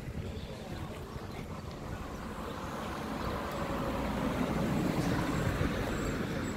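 Rumble of a road vehicle going past, growing louder to a peak about five seconds in and then easing off.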